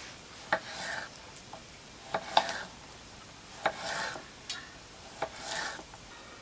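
Kitchen knife knocking on a cutting board while vegetables are cut small, several sharp knocks, some followed by a short scraping rasp of the blade, about once every second or so.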